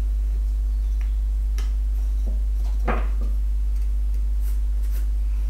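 A few faint pencil scratches and light taps on a wooden block during marking out, over a steady low hum.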